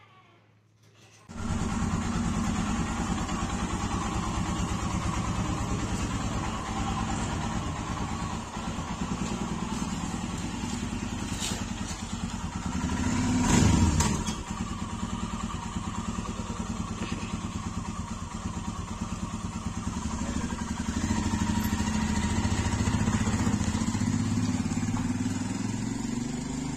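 Royal Enfield Himalayan motorcycle's single-cylinder engine running steadily with an even thumping pulse, rising briefly in speed about halfway through.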